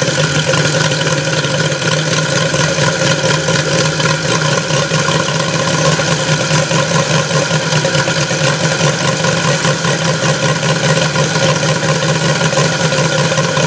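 Evolution 160 radial model aircraft engine idling steadily with its propeller turning. It is running smoothly on a newly replaced ignition module, and the owner takes the old ignition unit to have been bad.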